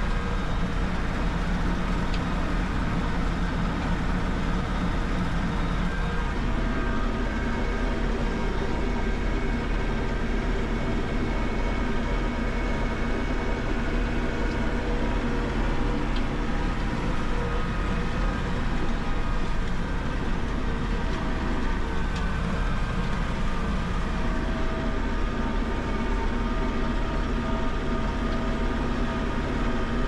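New Holland 4030 tractor's diesel engine running steadily under load, heard from inside the cab, with only slight shifts in engine pitch.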